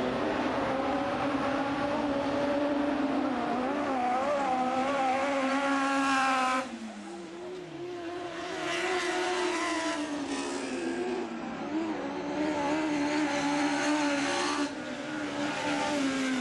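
Autocross race car engines at high revs, the pitch climbing through the gears and falling as the throttle closes, with a sudden drop about six and a half seconds in before the engines pull hard again.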